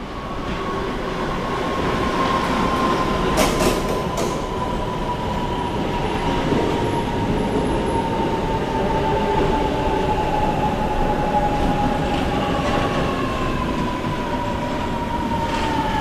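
RATP MF88 metro train pulling into a station, getting louder as it arrives, with a high whine that slowly falls in pitch as it slows, over the rumble of the wheels on the rails. A few sharp clicks come about three and a half seconds in.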